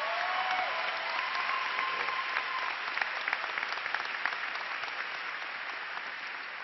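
Large theatre audience applauding, the clapping slowly fading away. A couple of long held high notes sound over it in the first two and a half seconds.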